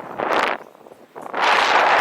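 Wind buffeting the microphone of a camera on a moving electric unicycle. There is a short gust about a quarter second in, a brief lull, then steady loud rushing from about a second and a half in.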